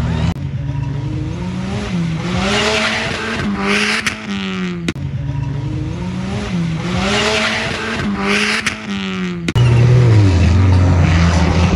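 Off-road 4x4 race vehicle engines revving hard, the pitch rising and falling over and over as they accelerate across a dirt course. The sound breaks off and jumps abruptly twice, about halfway and near the end.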